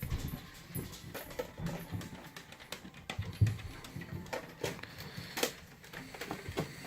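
Irregular thumps, taps and clicks in a small room, with a louder thump about halfway through.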